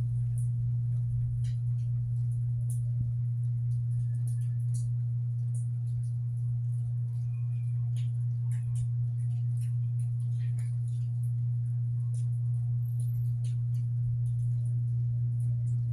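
A steady low hum with scattered light clicks and ticks.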